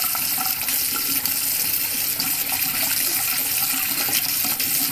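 Bathroom tap running in a thin stream into a white washbasin, a steady splashing, with irregular extra splashes where a kitten's paw breaks into the stream.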